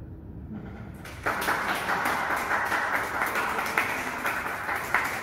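Audience applause, starting abruptly about a second in: a dense patter of many hands clapping.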